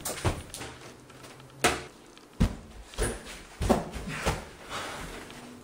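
A person moving about, making a string of sharp knocks and thumps, about six, spaced irregularly a half-second to a second apart.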